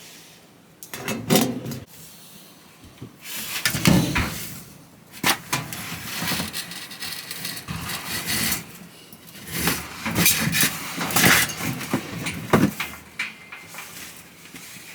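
Irregular knocks, clunks and short scrapes of dryer parts being handled and moved, with several louder clunks about four seconds in and again near eleven to twelve seconds.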